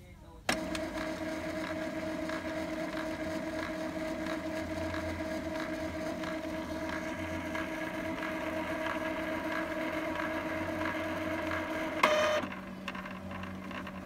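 Epson L3150 inkjet printer running its power-cleaning cycle: the motor runs with a steady whine and faint regular ticking, then stops with a sharp clunk about twelve seconds in, leaving a lower, quieter hum.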